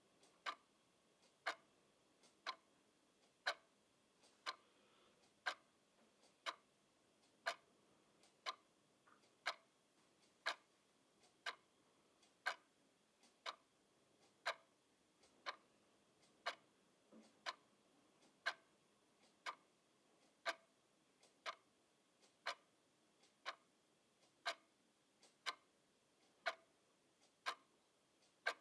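Clock ticking steadily, about one sharp tick a second, with fainter clicks between some of the ticks.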